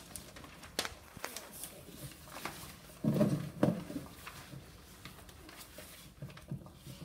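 Quiet room with scattered light clicks and rustles, and a muffled low double thump about three seconds in.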